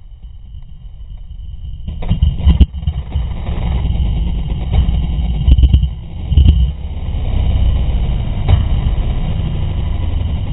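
KTM dirt bike engine running, much louder from about two seconds in, with a few brief surges.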